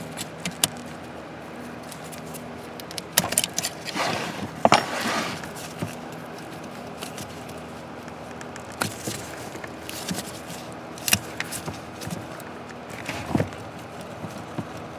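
Scattered clicks, taps and rattles of hand tools and parts being handled while a brake-light switch is removed under a truck's dash, with a louder burst of rattling about four to five seconds in, over a faint steady hum.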